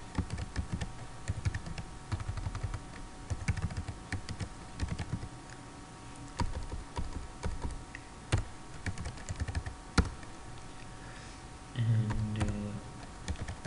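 Typing on a computer keyboard: bursts of rapid keystrokes separated by short pauses, with a few louder single key clicks around the middle.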